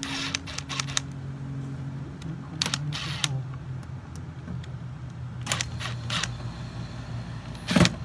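A cordless drill/driver runs screws into an aluminium door panel, with a few short spells of clicking and rattling on the metal and one sharper knock near the end. A steady low hum runs underneath.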